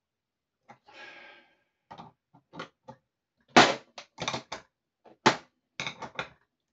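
Adjustable spanner clinking and knocking against the brass ceramic disc cartridges and the chrome body of a swan neck tap as the new cartridges are tightened: a run of sharp metal clicks, the loudest a little past halfway and about a second later, with a brief scrape about a second in.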